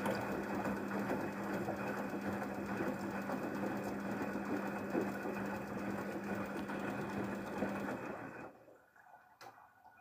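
The empty drum of a Daewoo DWD-FT1013 washing machine spinning, a steady mechanical rattle and whir with a hum underneath. The sound dies away about eight and a half seconds in as the drum comes to rest.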